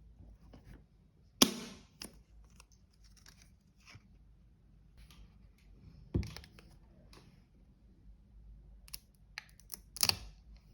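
iPad Pro box and its packaging handled and opened: light rustling with a few sharp snaps and clicks, the loudest about a second and a half in and a quick cluster near the end.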